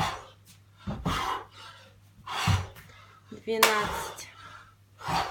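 A man panting hard during burpees: loud, rasping breaths about one every second or so, the sign of heavy exertion.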